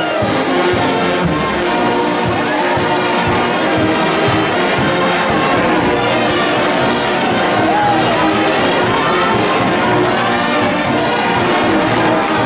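A brass band playing sustained chords over a cheering, shouting crowd.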